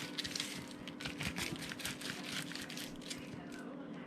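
Fillet knife working through a bass fillet, most likely sliding between skin and flesh from the tail end, giving a run of irregular wet crackling and scraping strokes. A steady low hum sits underneath.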